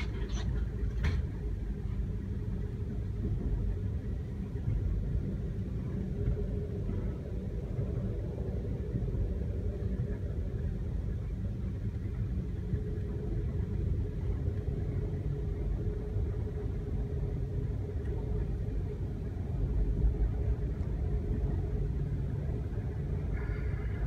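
Steady low rumble of a passenger train running along the tracks, heard from inside the carriage, with a couple of faint clicks about a second in.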